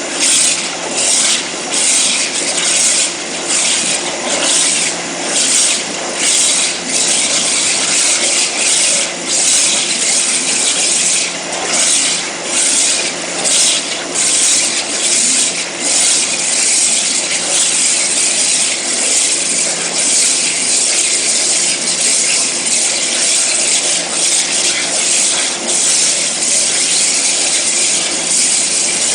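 CNC abrasive waterjet cutting, a loud high hiss of the jet through the workpiece, pulsing rapidly for the first half and then running as an even hiss.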